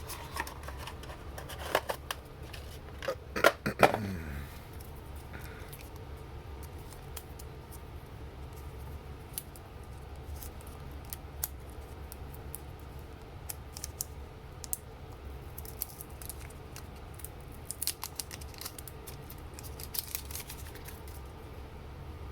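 A smartwatch and its box and packaging being handled and opened: a cluster of sharp clicks and snips in the first few seconds, then scattered light clicks over a steady low hum.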